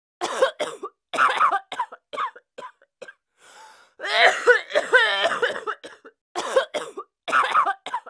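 A woman coughing over and over: a run of short, sharp coughs, a quick breath in, then a longer hacking fit with a strained voice about four seconds in, and two more coughs near the end.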